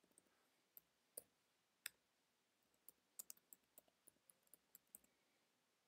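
Faint computer keyboard key clicks: a few isolated keystrokes, then a quicker run of taps from about three seconds in as a command is typed.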